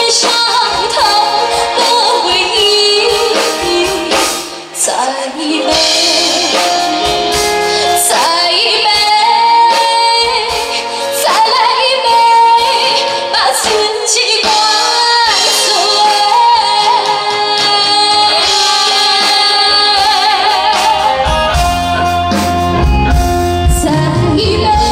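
A woman singing a Chinese-language song live into a handheld microphone over a band, amplified through a PA; the bass and drums fill in more heavily near the end.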